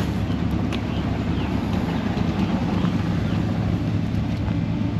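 Vehicle engines idling steadily, a continuous low engine sound with no break.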